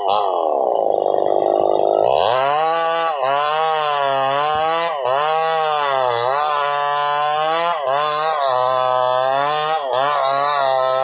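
Two-stroke chainsaw ripping a log lengthwise into boards at high revs. The engine pitch sags under load and recovers every second or two as the bar is worked back and forth, with one deep bog in the first two seconds.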